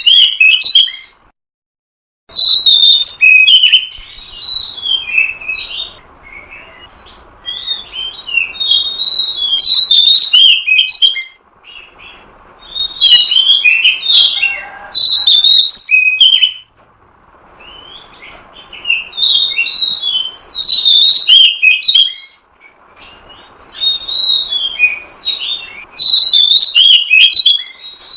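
Oriental magpie-robin (kacer) singing loud phrases of quick, varied whistles and chirps, each a few seconds long, broken by short pauses.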